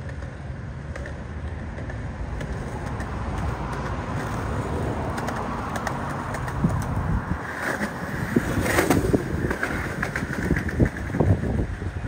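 Wind buffeting the microphone: a steady low rumble that grows louder, with irregular gusty thumps in the second half.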